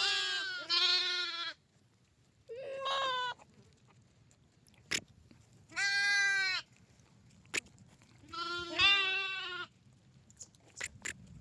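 Lamb bleating: five short, wavering calls with pauses between them, and two sharp clicks among them.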